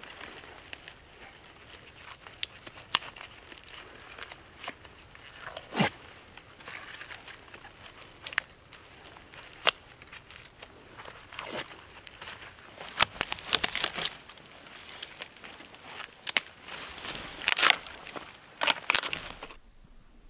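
Birch bark being cut with a knife and peeled from a fallen birch log: irregular crisp crackling, tearing and scraping, busier in the second half, cutting off suddenly near the end.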